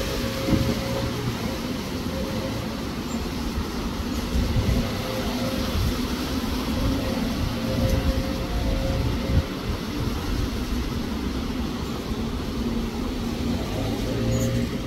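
Wind buffeting the microphone in a steady rushing noise with gusty low rumble, over a faint steady hum.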